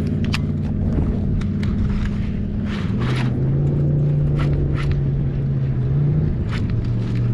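Boat motor running steadily, its pitch shifting about three seconds in and again near six seconds, with scattered clicks and knocks.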